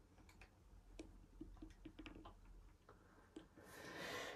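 Faint, irregular clicks of TV remote buttons being pressed. Near the end a soft breathy rustle swells up and breaks off.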